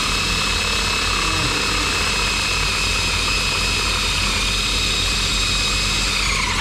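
A high-speed power-tool motor running with a steady high-pitched whine, then winding down in pitch as it is switched off at the very end.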